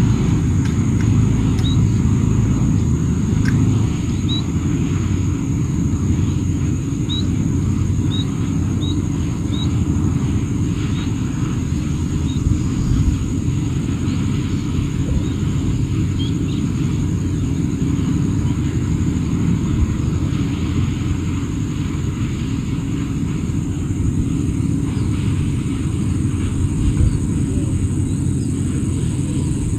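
Outdoor ambience by a wetland pond: a steady low rumble throughout, with a steady high hum above it. A few short, high chirps come in the first ten seconds or so.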